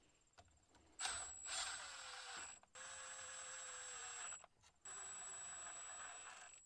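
Cordless power driver running the differential cover bolts in: three short steady runs of about a second and a half each, with a high whine, as each bolt is snugged until it bottoms out.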